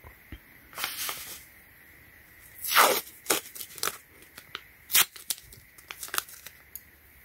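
Blue painter's tape being ripped. The loudest, longest rip comes about three seconds in, followed by several short rips and crackles as the strip is handled.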